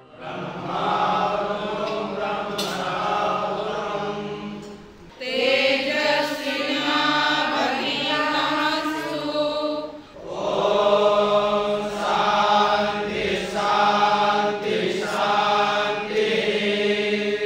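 A group of students chanting a prayer in unison before a meal, in three long, steady-pitched phrases with short breaks about five and ten seconds in.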